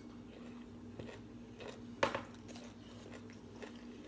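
Quiet mealtime sounds: forks clicking lightly on ceramic plates and soft chewing, with one louder sharp click about two seconds in, over a steady low hum.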